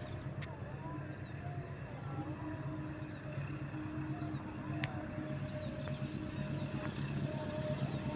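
Diesel locomotive engine running as the train approaches, a steady low drone that grows slowly louder, with a few short high chirps above it.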